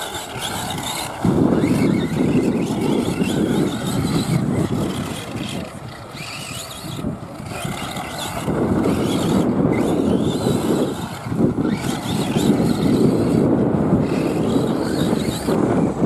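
Electric 1/8-scale RC buggy (Arrma Typhon) running on a dirt track, its motor whine rising and falling with the throttle. A loud low rushing noise covers it; this noise starts abruptly about a second in, sags for a couple of seconds around the middle, then comes back.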